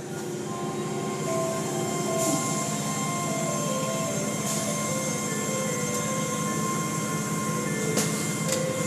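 Automatic tunnel car wash heard from inside the car: a steady rush of water spray and washing machinery working over the car, with a brief knock near the end.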